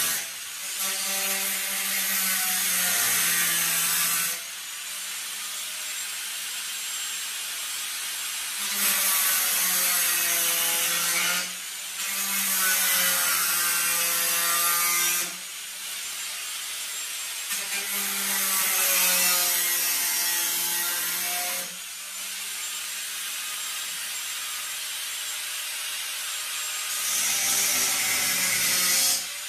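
Angle grinder with a cutting disc slicing through the sheet-steel rear window filler panel of a Holden VK Commodore, in five loud cutting passes of a few seconds each, its whine sagging in pitch under load. Between passes the grinder runs on, quieter, off the metal or only lightly touching it.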